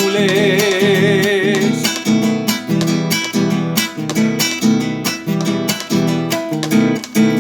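A song: a sung note held with vibrato for the first second and a half or so, then acoustic guitar strumming a steady rhythm.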